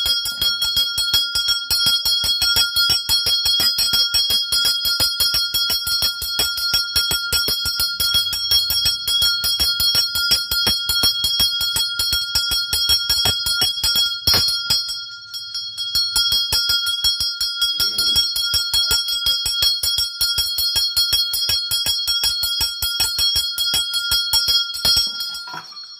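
Brass hand bell rung rapidly and continuously during the aarti, fast even strikes over a steady ring; it stops near the end.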